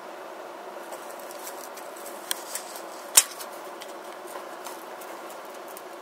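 Scattered small clicks and ticks over a steady low background noise, with one sharper click a little after three seconds in.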